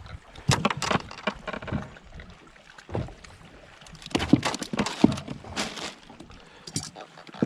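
Irregular clusters of knocks, clicks and rattles from gear being handled in a small fishing boat.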